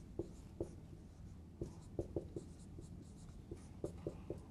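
Dry-erase marker writing on a whiteboard: a faint string of short, irregular squeaks and taps as each letter is stroked out.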